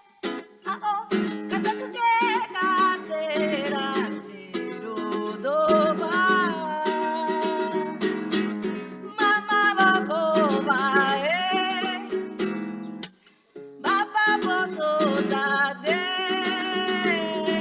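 Song with a lead voice singing with vibrato over a plucked-string accompaniment, breaking off briefly about two-thirds of the way through before both resume.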